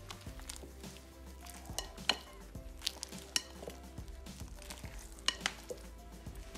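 Clear glue slime being stirred in a bowl: a soft wet sticky sound with several sharp clicks of the mixing utensil against the bowl, over quiet background music.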